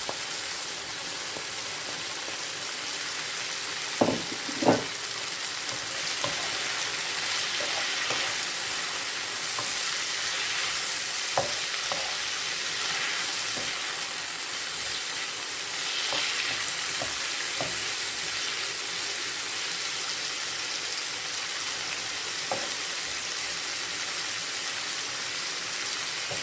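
Chopped onions, garlic, bell peppers and carrots sizzling in hot oil in a pot, a steady hiss. Short knocks now and then as the vegetables are stirred, two close together about four seconds in.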